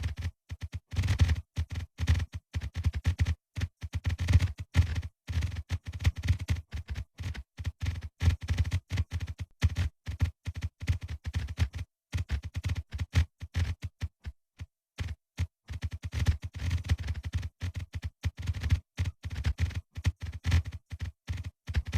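A dense, irregular run of short clicks and low thumps in quick succession. It thins to silence briefly about halfway through, then picks up again.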